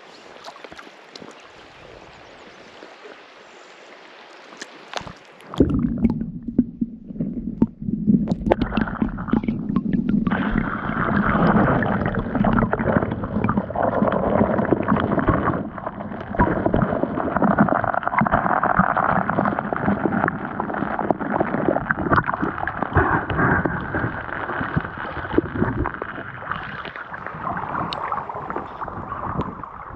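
Faint water hiss at first, then about five seconds in a sudden loud, churning gurgle of river water around a camera held at and under the surface of the current, running on unevenly.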